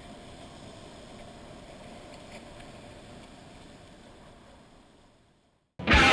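Steady, even outdoor background noise on the camera microphone, fading away over the last couple of seconds. Loud rock music with guitar cuts in abruptly at the very end.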